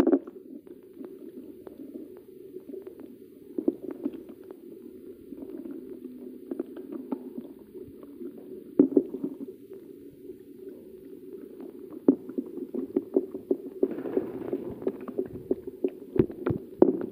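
Wet rubbing and splashing as a small dog's soaked coat is scrubbed by hand during a bath, with scattered light knocks and taps. Near the end come a few sharp clicks from a shampoo pump bottle being worked.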